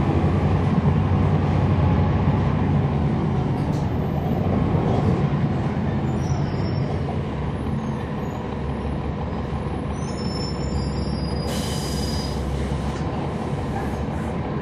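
Cabin of a 2011 NABI 40-SFW transit bus heard from the back seat: its Cummins ISL9 diesel engine runs steadily and gradually eases off. Thin high squeals come around the middle, and a short hiss comes near the end.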